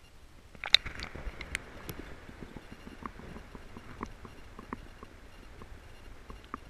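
Camera in a waterproof case going under the lake's surface: a splash just under a second in, then a muffled underwater rumble dotted with light clicks and taps.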